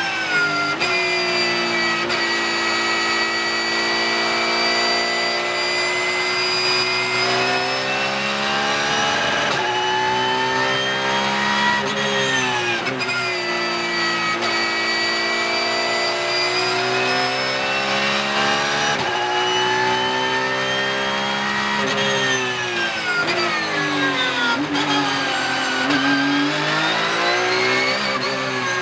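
Porsche 911 (992) GT3 Cup car's naturally aspirated flat-six racing engine, heard loud from inside the cockpit. Its pitch climbs under acceleration and falls off under braking, several times over, with a few stretches held steady.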